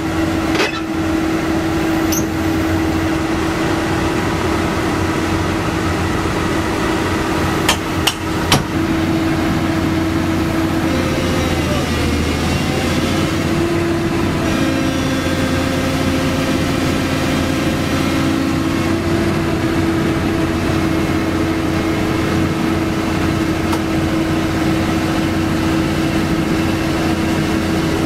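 Doosan DX225LCA crawler excavator's diesel engine running steadily with a constant hum as its steel tracks crawl onto a truck deck, with a few sharp metallic clanks, mostly about eight seconds in.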